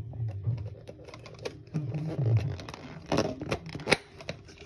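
Clear plastic cups being handled on a counter, with a few sharp plastic clicks and knocks in the second half.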